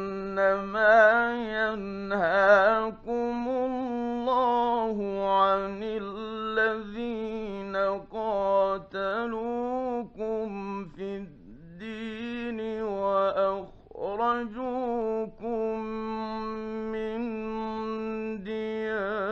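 A male Quran reciter chanting in the melodic mujawwad style from a late-1950s radio studio recording: long held notes ornamented with trills, briefly pausing for breath a little past the middle.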